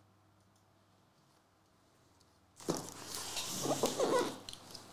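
Hands gripping and turning a taped cardboard shipping case: cardboard rubbing and scraping, with a few short squeaky glides. It starts suddenly about two and a half seconds in, after near silence.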